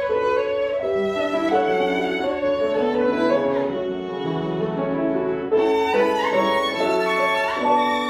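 Solo violin playing a melody with grand piano accompaniment, the violin sliding between some notes; the music grows louder about five and a half seconds in.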